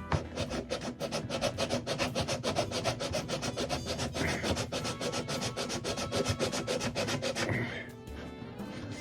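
Rapid back-and-forth abrading strokes on wood, several a second, taking down a hump in an archtop guitar's neck pocket so the neck heel will sit tight against the body; the strokes stop about seven and a half seconds in. Background music plays underneath.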